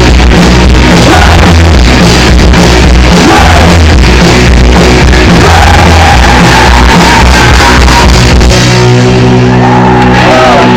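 Very loud rock music with shouted, sung vocals, recorded right at full scale. The heavy bass drops out about eight and a half seconds in, leaving held chords and the voice.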